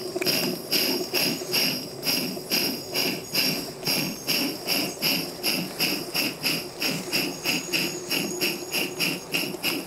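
Live-steam 1:20.3 scale model of a K-36 2-8-2 narrow-gauge locomotive chuffing under steam, a steady rhythm of short hissing exhaust beats at about three a second.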